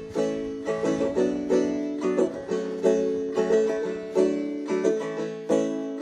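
Background music: an instrumental passage of plucked-string notes picked in quick succession, each ringing and fading. It starts abruptly at the beginning.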